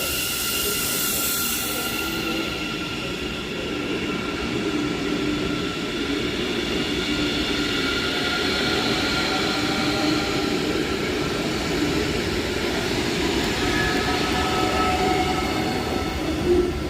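Electric train moving along the platform: a steady rumble of wheels on rail with several high whining tones held over it. A high hiss cuts off about two seconds in.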